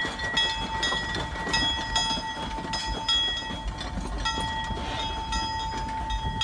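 Narrow-gauge steam locomotive rolling past with its bell ringing steadily, about two or three strokes a second, over a low running rumble.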